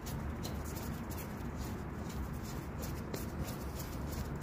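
Soft, irregular rubbing and scuffing as a gloved hand turns a rubber bump stop on its threaded mount, over a low steady hum.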